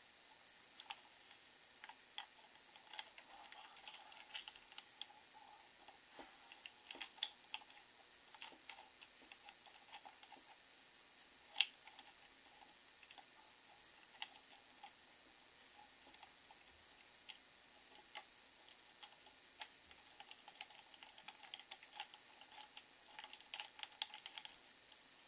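Faint, irregular light clicks and taps of small parts and objects being handled, with one louder click about twelve seconds in and a quick run of clicks near the end.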